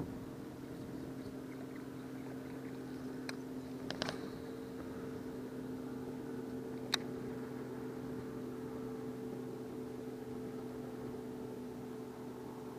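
Electric trolling motor on a bass boat running with a steady hum, with a few sharp clicks about four and seven seconds in.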